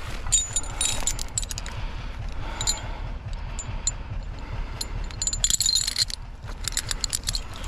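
Zetor 7245 tractor's diesel engine running steadily at a low rumble during log pulling, with bursts of light metallic clinking and jangling about a second in, briefly near three seconds, and again around five to six seconds in.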